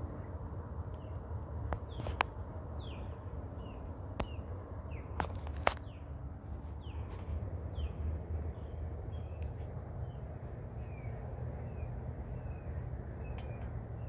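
Outdoor morning ambience: small birds giving short falling chirps again and again over a steady high insect whine and a low rumble, with a few sharp clicks in the first half.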